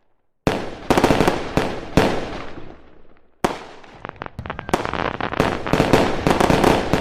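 Fireworks going off: several sharp bangs, each trailing off in crackle, then a dense run of rapid crackling pops in the second half.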